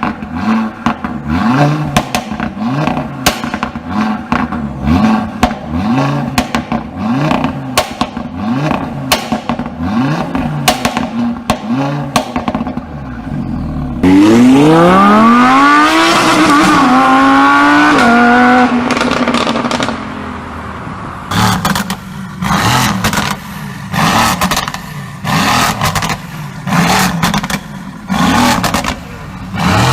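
A performance car engine revved again and again through the exhaust, each blip rising and falling in pitch and followed by crackles and pops. About halfway through, a louder full-throttle rev climbs for several seconds, then drops and holds. Near the end, shorter revs with pops return.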